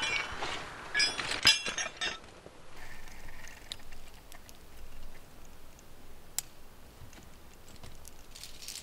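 Metal climbing hardware (carabiners and cams) clinking with a bright ring: a few loud clinks in the first two seconds, then faint scattered clicks and a few more clinks near the end.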